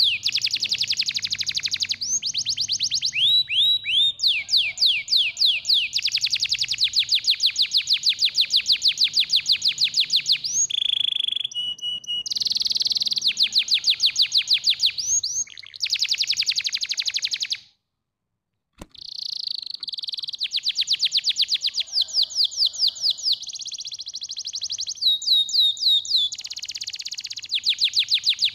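Domestic canary singing: long rolling trills of rapid repeated notes, some runs made of quick downward-sweeping whistles. The song breaks off abruptly for about a second two-thirds of the way through, then resumes.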